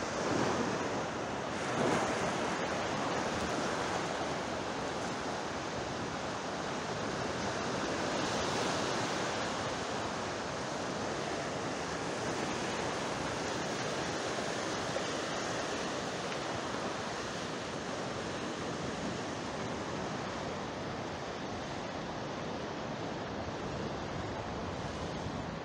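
Sea waves washing in, a steady rushing wash with two louder surges near the start.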